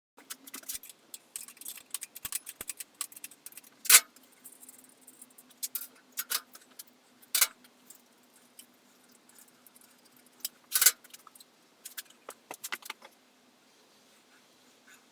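Metal tools and parts being handled, clinking and tapping: scattered light clicks with three louder sharp metallic clinks, about four, seven and eleven seconds in.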